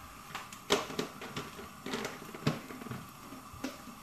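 A handful of light, irregular knocks and clicks from kitchen things being handled and set down, over a faint steady hum.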